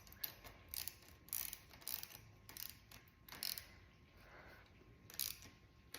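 Short metallic clicks and scrapes of hand work on a bicycle's rear derailleur and its cable fitting, coming irregularly every half second or so.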